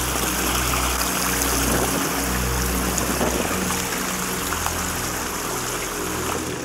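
Fast, ice-cold snowmelt stream rushing over rocks: a steady loud rush of water that cuts off abruptly at the very end.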